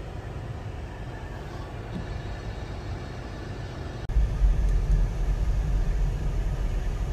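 Car driving on a snow-covered road: a steady low rumble of engine and road noise inside the cabin, which cuts abruptly to a much louder, deeper rumble about four seconds in.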